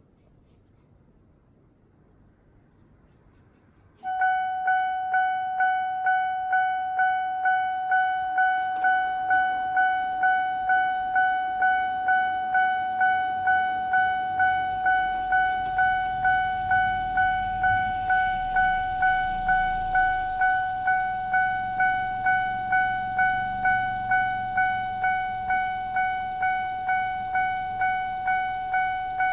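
An old railway level-crossing warning signal starts about four seconds in, sounding its high-pitched standard alarm tone. It repeats a little under twice a second, each stroke ringing and fading.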